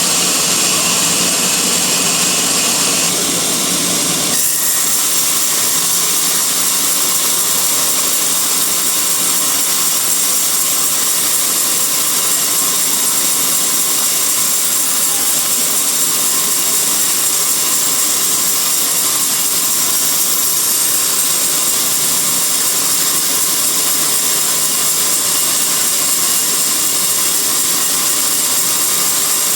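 Sawmill bandsaw running and cutting through a teak log: a loud, steady mechanical whine and rasp. The sound changes abruptly about four seconds in.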